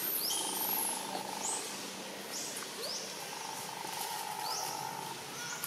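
Outdoor ambience with a short, high call rising in pitch, repeated five times about every second and a half, and a buzzing note lasting about a second, heard twice.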